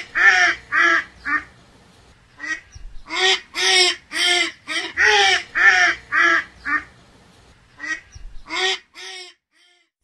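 Duck quacking over and over, in runs of several quick quacks separated by short pauses.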